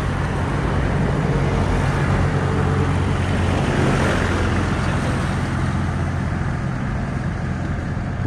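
Road traffic: vehicles passing with a steady low engine hum, one passing louder about four seconds in.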